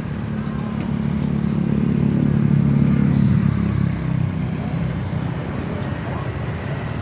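Bus diesel engine pulling away, swelling louder for about three seconds before easing off about four seconds in.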